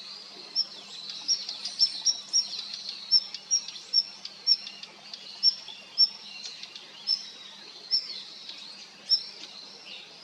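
Female Daurian redstart giving short, high-pitched call notes, repeated at irregular intervals of about one to two a second. A faint low hum runs underneath.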